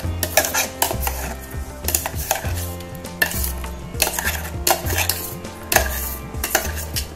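Steel spoon scraping and knocking inside a stainless-steel mixer-grinder jar, scooping thick ground coconut-mustard paste out into a steel bowl: irregular clinks and scrapes.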